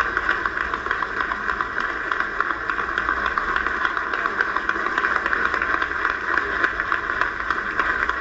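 Sustained applause from a large audience, a dense steady patter of many hands clapping, heard thin and boxy through a television speaker.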